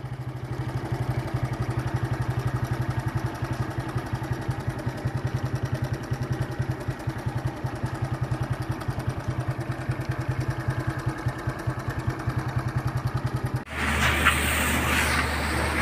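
A vehicle engine idling with a fast, even pulse. Near the end it cuts abruptly to a louder, steadier rumble with hiss.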